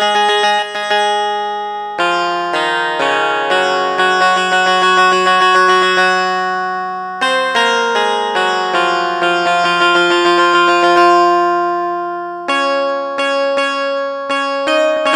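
Keyboard playing a plucked, guitar-like tone: chords held and changed every second or two, with quickly repeated notes at the start and again near the end.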